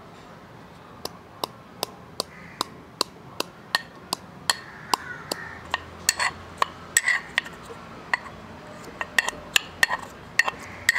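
Metal pestle pounding pieces of fresh ginger in a small metal mortar: sharp clinking knocks, about three a second, starting about a second in.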